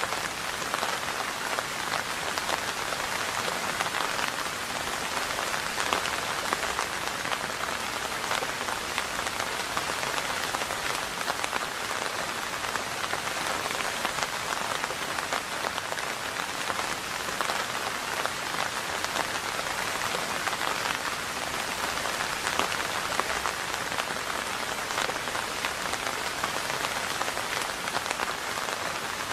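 Steady rain falling, an even hiss of many small drops.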